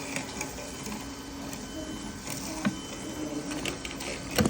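Double-bead, double-sequin sewing machine running with a steady mechanical whir and a few sharper clicks.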